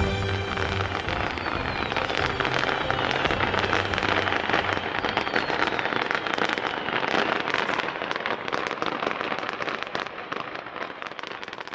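Fireworks crackling, a dense run of many rapid sharp pops. Music fades out within the first second or so, and the crackle begins to fade near the end.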